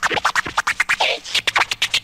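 Turntable scratching: a record pushed back and forth by hand in quick strokes, each one a short sweep in pitch, several strokes a second.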